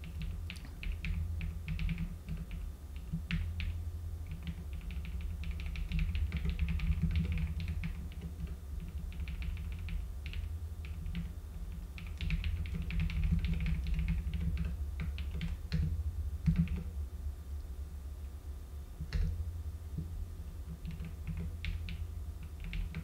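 Computer keyboard being typed on in irregular bursts of quick clicks with short pauses, over a steady low hum.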